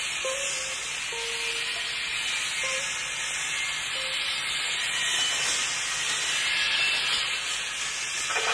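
A steady hiss of noise whose tone sweeps slowly up and down like a swish, with a few short faint tones in the first four seconds; it swells slightly about halfway through.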